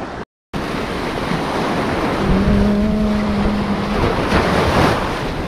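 Surf washing onto a beach, with wind on the microphone, after a split-second break in the sound. About two seconds in, a water buffalo (carabao) gives one long, low, steady moo lasting nearly two seconds, and a wave washes in near the end.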